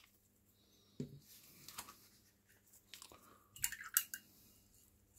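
Faint clicks and taps of a small plastic paint dropper bottle being capped and set back down on the table. There is a single click about a second in and a short cluster of taps near the end.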